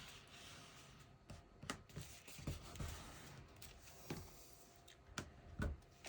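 Faint rustles and light taps of cardstock being handled and positioned on a crafting table, a handful of short, separate sounds.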